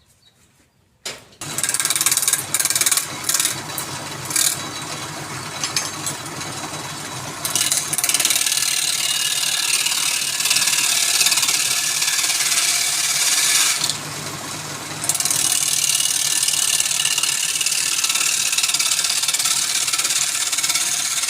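Wood lathe starts up about a second in and runs, with a turning tool cutting the spinning wood in a steady hiss over a low motor hum. The cutting eases off briefly about two-thirds of the way through, then resumes.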